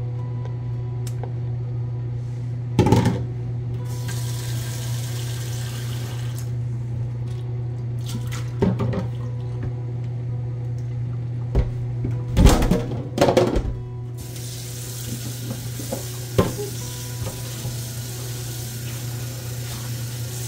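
Kitchen clatter of dishes and utensils: several loud knocks, about three seconds in, near nine seconds, a cluster around twelve to thirteen seconds, and once more about sixteen seconds in, over a steady low hum. A high hiss comes in briefly about four seconds in and again from about fourteen seconds on.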